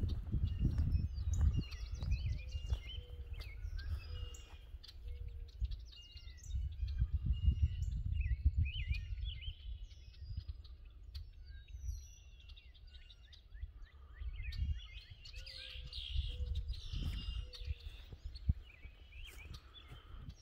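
Small birds chirping and calling, with a run of evenly spaced low notes heard twice, over the low thuds of footsteps walking on grass.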